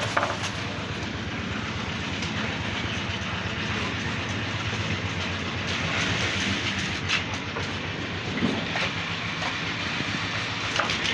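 Concrete pump running: a steady, loud mechanical noise with a low engine hum and a few short knocks.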